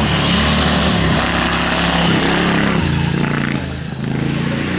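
A vintage racing car's engine running hard under acceleration, its note stepping up and down several times. The sound dips briefly near the end, then comes back.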